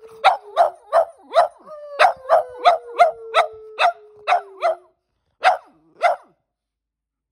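Dogs barking, a Boston Terrier and a German Shepherd–Lab mix, in quick sharp barks about three a second, under a long, slowly falling howl that breaks off once and resumes. The howl stops before the last two barks, which come about half a second apart.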